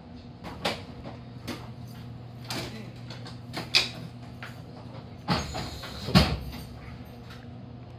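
Steady low hum of a stopped train's onboard equipment, with several scattered knocks and clunks, the loudest about five and six seconds in.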